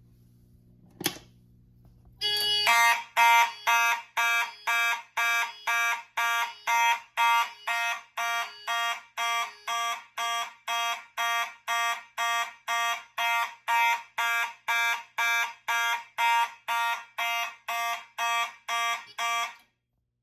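A single click, then fire alarm horns on a Simplex 4100U fire alarm panel sound the alarm. They pulse evenly at about two beats a second, a march-time pattern, and cut off suddenly near the end.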